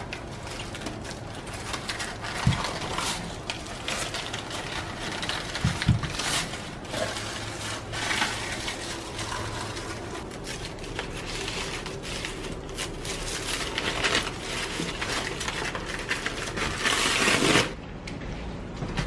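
Brown honeycomb kraft packing paper rustling and crinkling as a mug is wrapped in it by hand, with a couple of soft knocks. A louder burst of crinkling comes near the end and cuts off suddenly.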